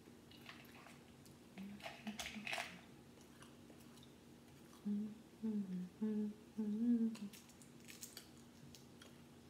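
A woman humming a few wavering notes with her mouth closed, loudest about two-thirds of the way through. Around it come light crackles and clicks of a cooked shrimp shell being peeled by hand, about two seconds in and again near the end.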